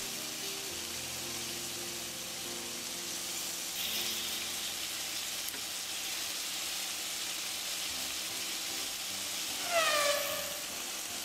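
Pork loin pieces sizzling steadily as they sear in oil in a nonstick frying pan. Just before the end a short tone falling in pitch sounds briefly over the sizzle.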